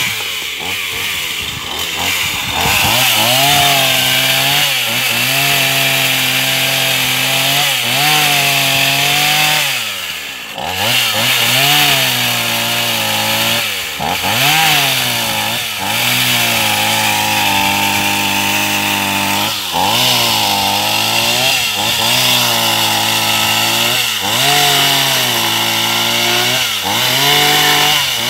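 Two-stroke chainsaw running at high revs while ripping wooden planks lengthwise along the grain. The engine pitch drops as the chain bites into the wood and climbs back, over and over, about every two seconds.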